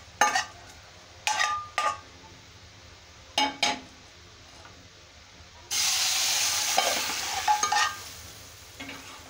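A metal spoon clinks against a steel pan a few times. About six seconds in, a sudden loud sizzle starts as hot tadka oil with cumin and green chillies hits chickpea curry, then fades away over a couple of seconds.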